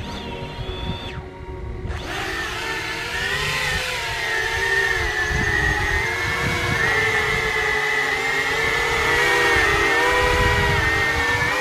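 Electric multirotor motors and propellers spinning up about two seconds in and whining steadily as the converted Millennium Falcon lifts off and flies. The whine's pitch keeps wavering up and down as the motor speeds change.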